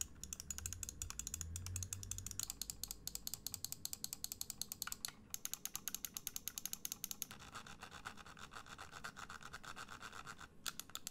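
Scroll wheel of a G-Wolves Hati S gaming mouse being rolled, its notched steps clicking in a quick, even run of faint ticks, many to the second, with a short pause near the end.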